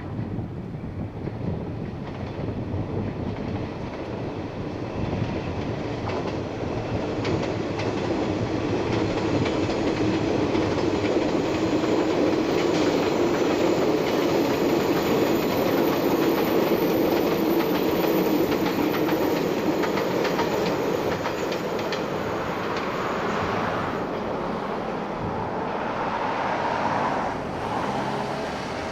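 381 series tilting electric train running past, its wheels clattering over rail joints and points. The sound builds to its loudest in the middle and then eases off.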